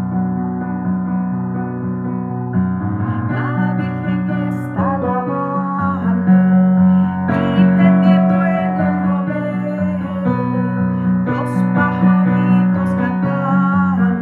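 Instrumental backing track for a Spanish Christmas carol (villancico), with a steady bass under changing chords.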